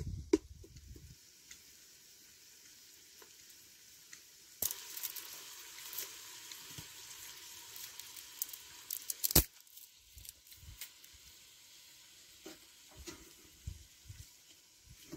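Sliced onions sizzling as they fry in a steel pot over a wood fire, stirred with a wooden spoon. The sizzle starts abruptly a few seconds in and stops just as suddenly with a sharp knock about nine seconds in, followed by light scattered clicks and rustles.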